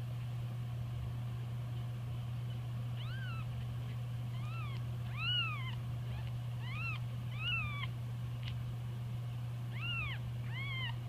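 Very young nursing kittens mewing: a string of about seven short, high-pitched mews that rise and fall in pitch, beginning about three seconds in.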